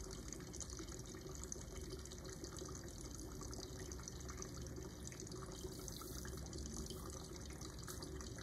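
Faint, steady sound of a water jet squirting from a tank outlet and running into a container below.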